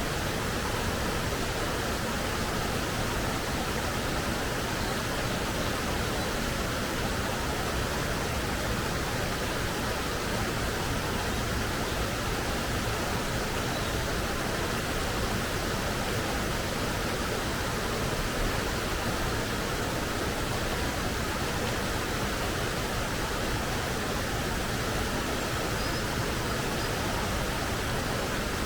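Forest stream with clear water flowing and splashing over rocks: a steady, even rush of water.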